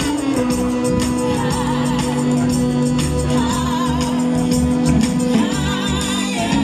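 Music with singing and held notes over a steady beat.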